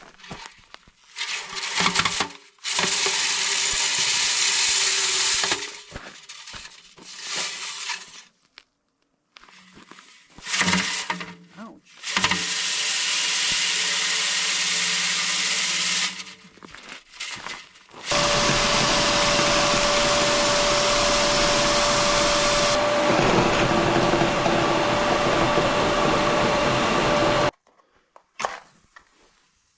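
An electric motor-driven tool running in three bursts with clatter between, the last and longest about nine seconds with a steady hum, during the cleaning of a wood stove pipe.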